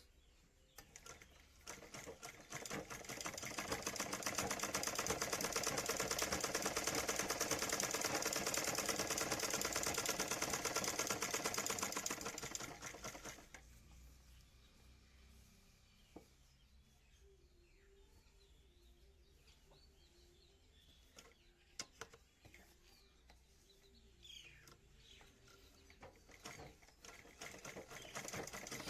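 Sewing machine running at speed with a fast, even mechanical clatter, slowing and stopping about halfway through. A few light clicks follow, and the machine starts running again near the end.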